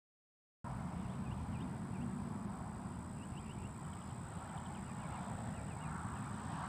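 After about half a second of silence, outdoor ambience comes in: wind rumbling on the microphone, with faint bird chirps.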